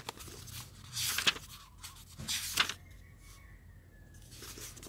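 Pages of a paper book being turned: two short, papery rustles about a second and a half apart.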